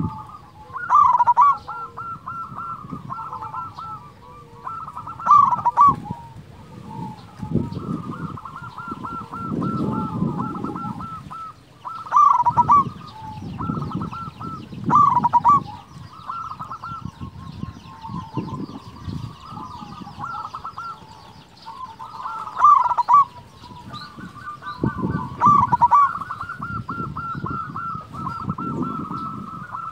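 Zebra dove (perkutut) singing: rolling, trilled cooing notes throughout, with loud phrases every few seconds, about six in all.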